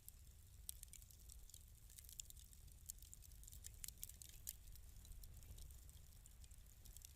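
Fireplace crackling softly: irregular, scattered pops and snaps over a low, steady rumble of the burning fire.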